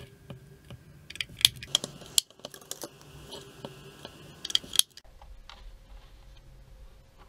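AA batteries clicking and clattering against the plastic battery compartment of a Godox LED64 video light as they are pressed in, in irregular sharp clicks. The clicks stop about five seconds in, leaving only faint taps of handling.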